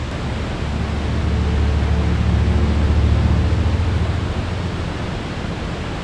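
Steady, dense rushing of a creek and waterfall in flood, swollen by snowmelt and heavy rain.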